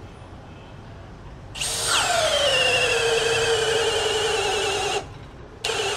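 Milwaukee M18 FUEL FPD3 (2904) cordless hammer drill boring into a thick wood block with a large wood bit. The motor starts about a second and a half in, with a whine that drops in pitch as the bit bites and loads up, then runs steadily. It stops briefly, then starts again near the end.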